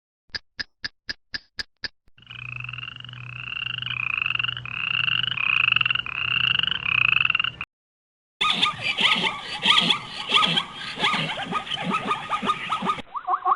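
Six quick clicks, then seven croaking calls in a steady rhythm, each rising and falling in pitch, given as an iguana's sound. After a short pause, a zebra calls with rapid, rough barking brays.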